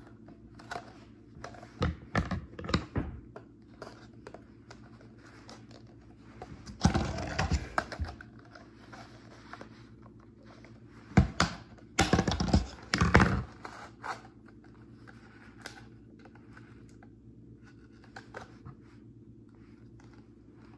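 Scissors points punching holes in a thin green plastic bottle, with the bottle crinkling and clicking in the hands as it is turned. It comes as irregular clicks, with louder bursts of crunching about seven seconds in and again around twelve to thirteen seconds in.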